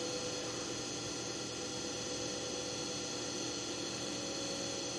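Steady background hum made of several fixed tones, unchanging throughout, with no other events.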